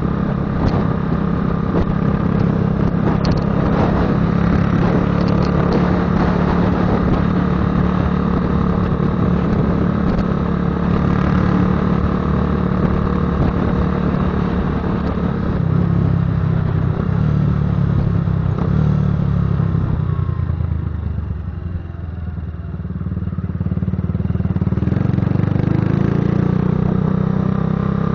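Patagonian Eagle cruiser motorcycle's engine and exhaust rumbling while being ridden at a steady pace. About twenty seconds in, the engine eases off and drops in pitch and level for a couple of seconds, then picks up again.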